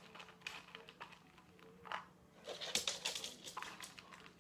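Faint scattered clicks and rustles, with a denser patch of quick tapping about two and a half seconds in, as a small terrier gets up and walks off, its claws tapping on a wooden floor.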